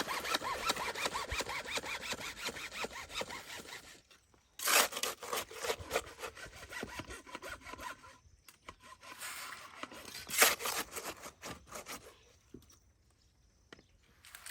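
Hand tool scraping through wet mortar being mixed by hand: a rapid run of scraping strokes, then a pause and two louder scrapes about five and ten seconds in, fading toward the end.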